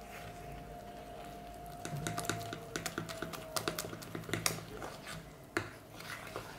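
A metal utensil stirring a thick oat-flour pancake batter in a plastic bowl. The ticks and scrapes come quick and irregular, starting about two seconds in.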